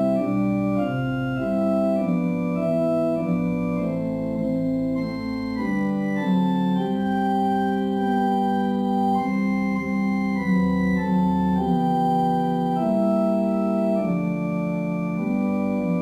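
Organ playing a slow hymn tune in sustained chords that change every second or so.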